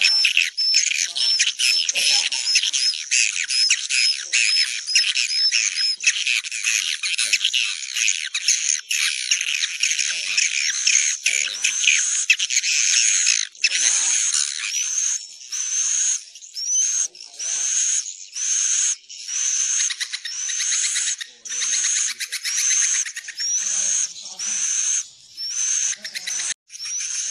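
Recorded swiftlet (walet) calls, the lure sound played in swiftlet nest-farming to draw the birds in to roost: dense, high-pitched twittering chatter. About halfway through, a clear rising chirp starts repeating roughly once a second over the chatter.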